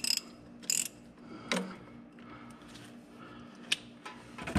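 Socket ratchet clicking in two short bursts as it is swung back and forth to loosen an engine oil drain plug, then a single knock about a second and a half in and a sharp tick near the end.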